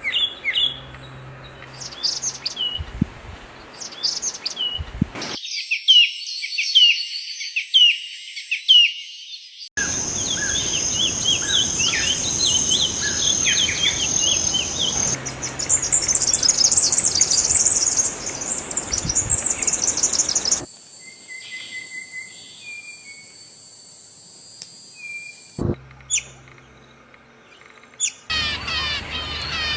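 Several different songbirds singing and calling in a string of clips that change abruptly every few seconds: downward-sweeping chirps, dense chattering, rapid high trills, then a quieter stretch with a few faint whistles before more busy chirping near the end.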